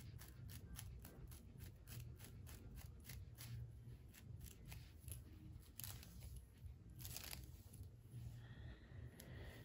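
Comb strokes through wig hair at the glued hairline: a quick, faint series of short scratchy strokes, thinning out in the second half, with a couple of longer rasps near the middle.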